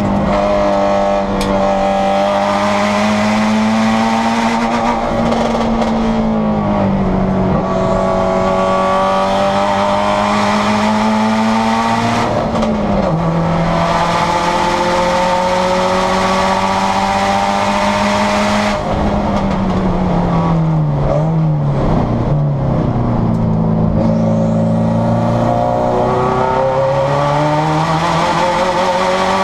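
Turbocharged Subaru STi race car's flat-four engine, heard from inside the cabin, pulling hard at high revs on track. Its pitch slides down about 13 seconds in, drops low and wavers for several seconds as the car slows and downshifts, then climbs steadily again under acceleration.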